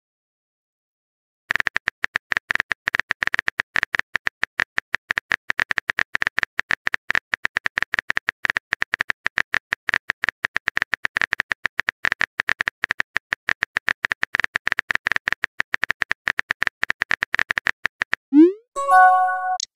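Rapid phone-keyboard typing clicks, a text-messaging sound effect, running for about sixteen seconds. They are followed near the end by a short rising whoosh and a brief chime of a few steady notes as the message is sent.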